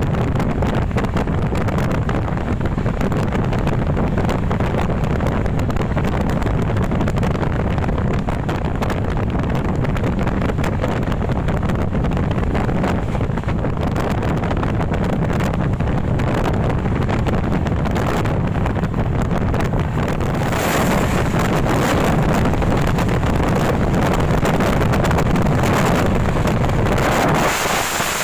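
A passenger train running at speed, heard from an open coach door: a steady low rumble of wheels on the rails mixed with heavy wind buffeting on the microphone. About two-thirds of the way through the rush turns louder and hissier, as a goods train goes by on the next track.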